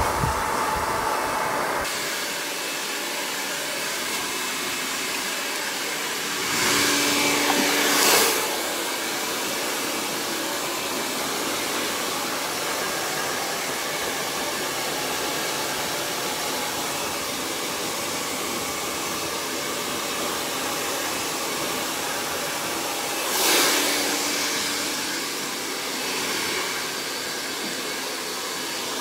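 Hand-held hair dryer blowing steadily during a round-brush blow-dry, growing louder twice for a second or so, about seven seconds in and again near the end.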